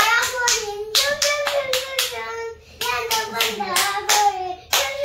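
Hands clapping in a quick steady rhythm, about four claps a second with two short breaks, while a voice sings or chants a tune along with it.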